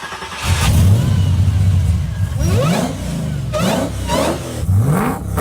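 Engine-swapped car's engine catching about half a second in and running with a loud, steady rumble, then revved up four times in quick blips.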